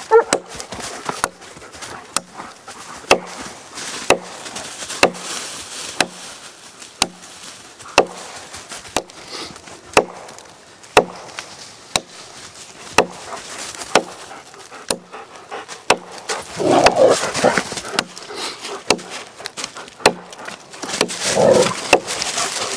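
Gränsfors Bruks Mini Hatchet chopping into a log, one sharp strike about every second. A dog barks in bursts about two thirds of the way in and again near the end.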